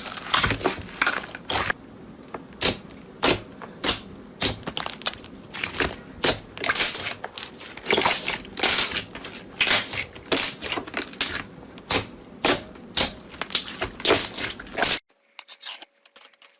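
Slime being squeezed and pressed by hand, giving dense, irregular crackling and popping clicks. These cut off abruptly about 15 seconds in, leaving only faint ticks.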